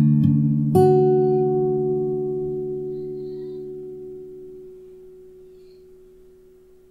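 Acoustic guitar's closing chord: a couple of soft fingerpicked notes, then a fuller chord plucked about a second in and left to ring out, fading away slowly.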